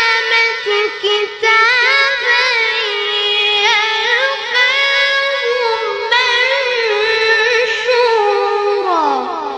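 A boy's voice reciting the Quran in the melodic tilawah style: long, high held notes with wavering ornaments, the phrase ending in a falling glide about nine seconds in.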